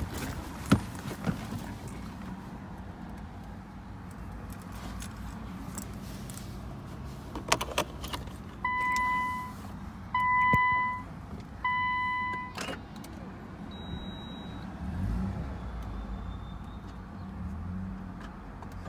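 Three steady electronic beeps, each about a second long and about a second and a half apart, with a few sharp clicks just before and after them over a low steady hum.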